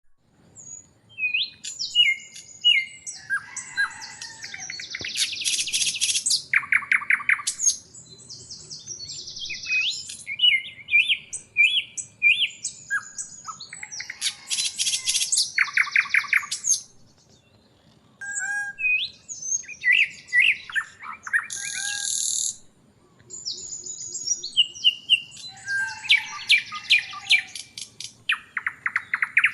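A songbird singing in long, varied phrases of high chirps, slurred whistles and fast trills, with short breaks about seventeen and twenty-three seconds in.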